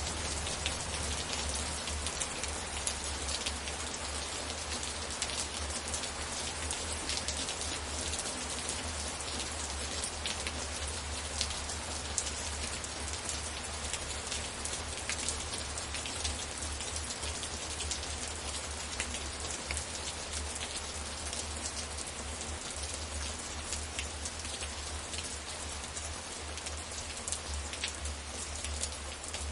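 Steady rainfall with a dense patter of individual drops striking surfaces, over a constant low rumble.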